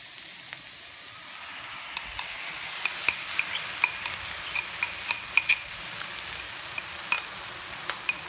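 Stainless steel spatula stirring sautéed onions and a wet chilli-coriander paste in a pan, knocking and scraping against the pan in irregular sharp clicks, over a soft frying sizzle.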